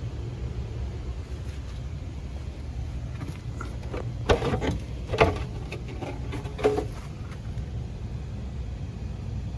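Steady low hum of a running geothermal heat pump system, freshly recharged with refrigerant, with three short knocks of handling between about four and seven seconds in.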